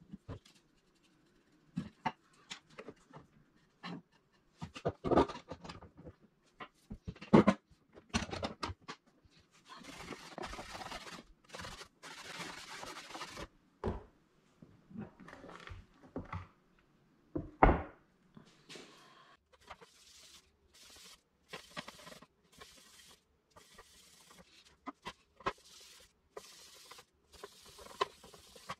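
Thin quarter-inch cherry and spalted maple panels handled on a wooden workbench during a clamped glue-up: scattered wooden knocks and thumps, with a few seconds of rubbing noise about ten seconds in.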